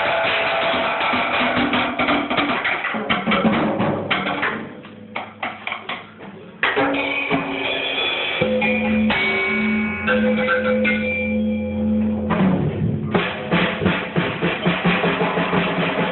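Rock music driven by a drum kit, with held notes from other instruments. It thins to a few sparse hits about four to five seconds in, then comes back in full.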